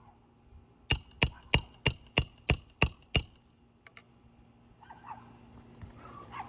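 A roofing hammer striking a roof snake eight times in quick succession, about three blows a second, each with a short metallic ring, to drive a nail under an asphalt shingle. Two lighter taps follow.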